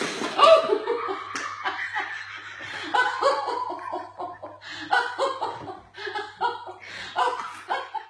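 Hearty laughter in quick runs of short bursts that break off and start again several times, over a faint steady low hum.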